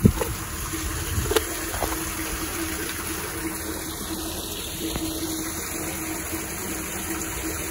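Steady rush of running rainwater, with a faint steady hum under it.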